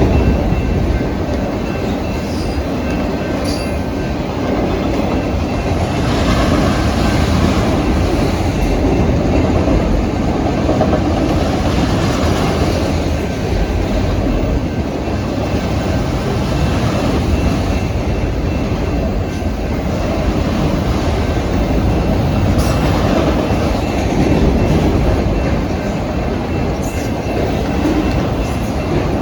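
Freight train cars rolling past close by: a steady rumble and clatter of steel wheels on the rails.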